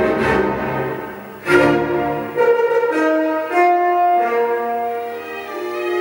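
Orchestral classical music with strings, played back through a homemade two-way Bluetooth boombox built to the Overnight Sensation speaker design. A held chord fades away, then a sharp loud chord strikes about a second and a half in, followed by more accented chords and held notes.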